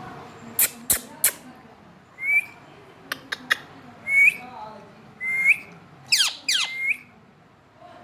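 Indian ringneck parakeet squawking: four loud, short calls, each a quick upward-bending note, the last run together with fast falling sweeps. Sharp clicks come between them, a few in the first second and a cluster around three seconds in.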